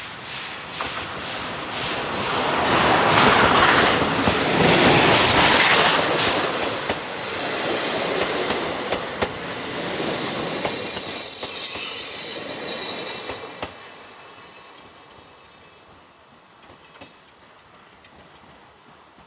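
Steam train hauled by the C10 8 locomotive passing close by: a quick rhythmic beat builds up loud, then the wheels give a steady high-pitched squeal for several seconds before the train draws away and the sound drops off sharply.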